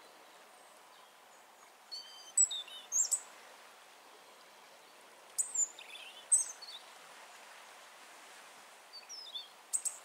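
A small songbird singing in short, high trilled phrases, three bursts a few seconds apart, over a faint steady hiss.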